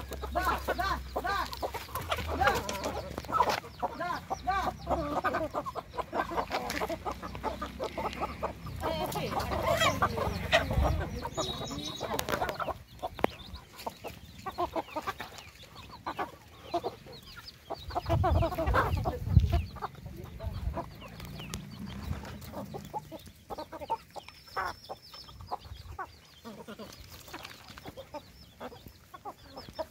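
A flock of hens and roosters clucking as they feed, with many short pecks and scratches at the dry ground. The clucking is busiest in the first dozen seconds and thins out later, and a low-pitched rumble swells briefly about two-thirds of the way through.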